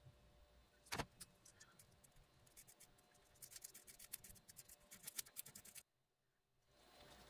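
Faint small clicks and taps of a stick mixing two-part epoxy on a strip of masking tape, with one sharper tap about a second in and a quick run of clicks in the middle. The sound cuts out for about a second near the end.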